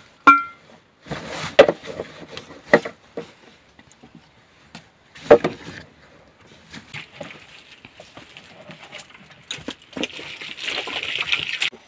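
Gear being packed into a backpack by hand: irregular rustling of fabric and bags with scattered knocks, and a longer stretch of scraping rustle near the end.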